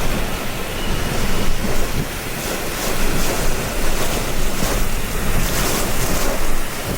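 Hurricane winds gusting with heavy rain, a loud, steady rushing that swells and eases every second or so, with wind buffeting the microphone.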